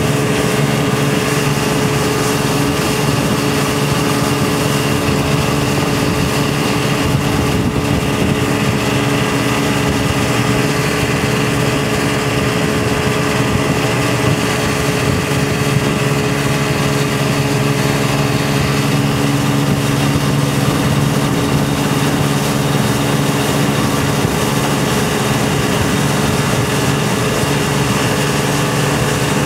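Tow boat's engine running steadily at towing speed, heard from aboard, over the rush of water from the wake.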